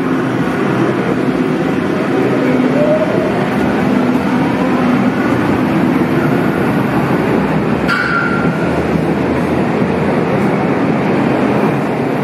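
Yellow Berlin U-Bahn train pulling out of an underground station: a steady running noise of motors and wheels, with a rising whine as it gathers speed and a short high squeal about eight seconds in.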